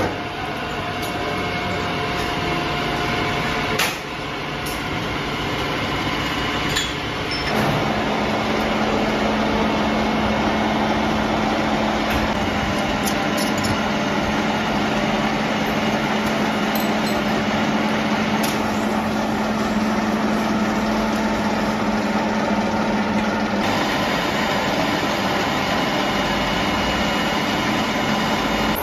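Machine-shop machinery running steadily, with a steady hum from about a third of the way in and a few sharp metallic clicks. The sound changes abruptly a few times.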